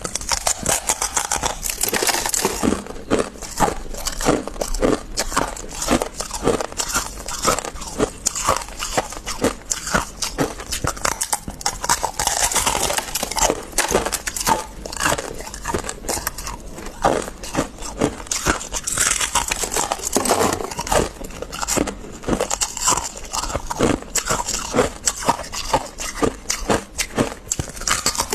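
Freezer frost being bitten and chewed close to the microphone: a dense, continuous run of sharp icy crunches and crackles, with a few stretches of brighter, hissier crunching lasting a second or two.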